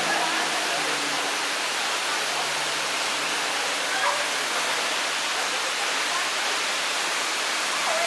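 Steady rushing of a waterfall pouring into a rock pool, with faint distant voices of people around it.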